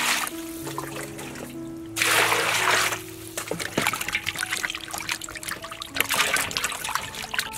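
A stream of water pouring into a metal basin of raw pork pieces, loud at the start and again for about a second from two seconds in, then splashing and sloshing as hands rub and wash the meat in the water. Background music with held notes plays throughout.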